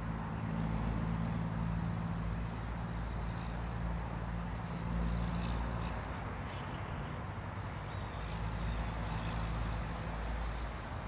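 Motor vehicle engine running steadily, a low hum that eases for a moment about six seconds in and then comes back.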